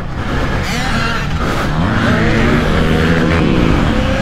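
Several small pit-bike engines revving at once, their pitch climbing and falling as they accelerate and shift.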